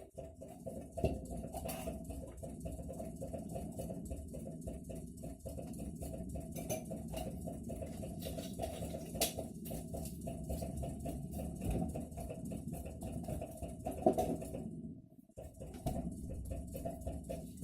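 New Atlant refrigerator knocking: a rapid run of short knocks over a steady hum. It breaks off for about a second near the end, then starts again. This is the fault the owner reports in the evening hours, which persists even with a voltage stabilizer.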